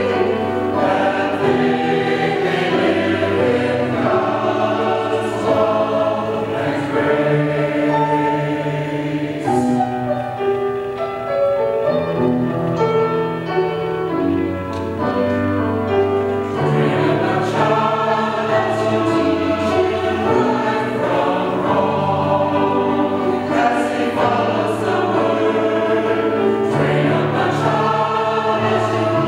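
Mixed church choir singing a sacred anthem in parts, with piano accompaniment.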